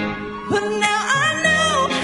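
A young woman singing a pop song live into a microphone, backed by a band, holding and sliding between notes.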